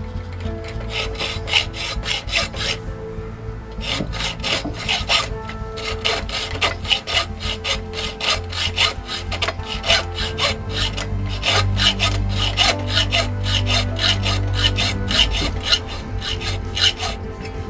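Hand hacksaw cutting through a steel shotgun barrel to shorten it, in steady back-and-forth strokes. There is a brief pause about three seconds in, and the sawing stops just before the end.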